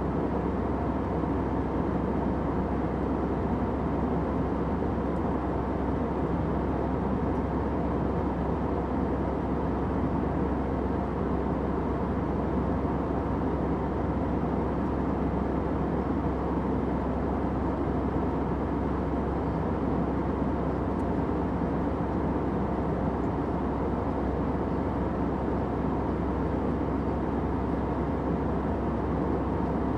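Airplane cabin noise: a steady, even rushing drone of engines and airflow with faint steady tones in it, unchanging throughout.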